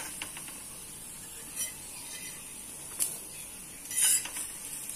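Steel spatula scraping and clicking against a tawa a few times while a stuffed besan cheela is folded, the loudest scrape about four seconds in, over a faint steady sizzle from the griddle.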